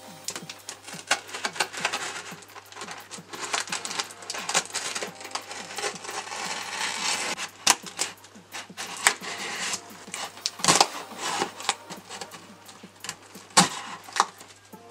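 Knife blade slicing and scraping through packing tape on a cardboard box: a rapid, irregular run of crackles, ticks and scratches, with a couple of louder strokes in the later part.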